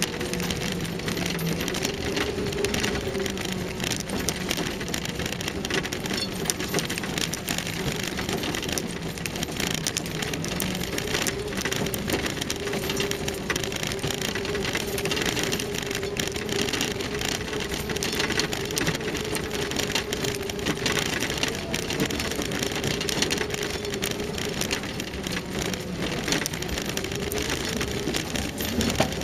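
Land Rover Series III driving slowly down a rough, stony track. The engine runs with a steady hum under a continuous dense crackle and rattle from the tyres and the bouncing vehicle.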